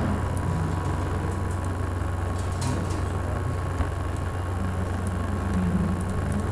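Steady low hum with a thin steady whine and hiss behind it, unchanging throughout, with a few faint clicks about midway.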